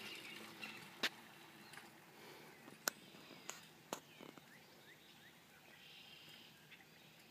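Quiet outdoor ambience with faint bird chirps and a few sharp clicks, the three loudest about one, three and four seconds in.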